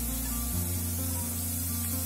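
Background music with a slow, steady bass line that changes note about half a second in, over a steady hiss of tomatoes and spices frying in ghee in the pot.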